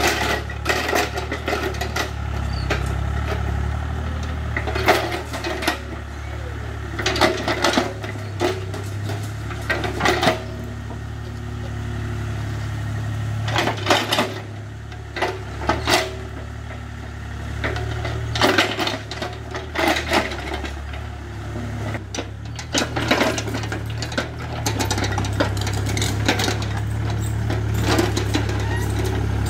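Hitachi EX30 mini excavator's diesel engine running steadily, its note changing a few times as it works, with repeated metal clanks and scrapes from the bucket and arm digging into stony dirt.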